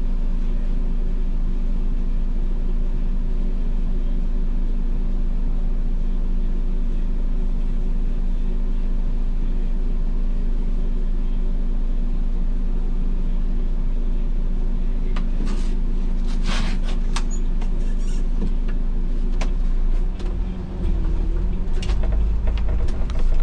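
MAN Lion's City city bus's diesel engine idling steadily with a low hum, heard from the driver's cab. About three quarters of the way in there are a few short clicks and knocks, then the engine note changes and a deeper rumble builds as the bus pulls away.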